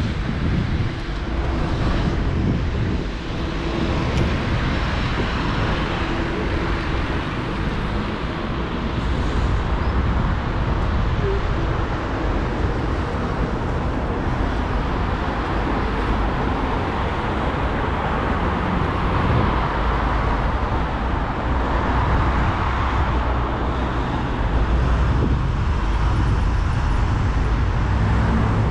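City street traffic on a wide road: cars passing, a steady rumble of engines and tyres that grows a little louder later on as vehicles go by.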